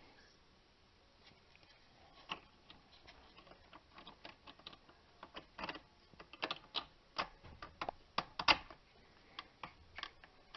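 Irregular light clicks and taps of small plastic and metal parts being handled, starting about two seconds in and coming thicker and louder in the second half, with one sharp click the loudest.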